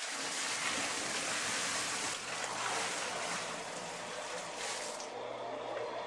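A bucket of water pouring and splashing into a sump pit, a steady rushing gush that eases about five seconds in as the bucket empties.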